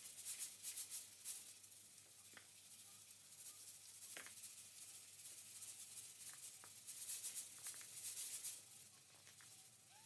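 Knife peeling a raw potato over a bowl: a run of quick scraping strokes in the first second or so, and again about seven seconds in. A few faint high chirps come between them.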